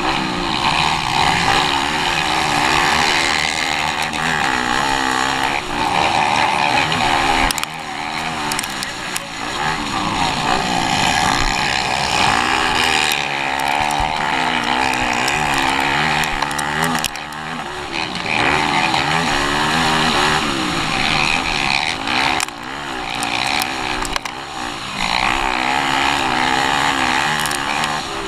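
Motocross dirt bike engine heard from on the bike, revving up and down through the gears as it races, with brief drops where the throttle comes off.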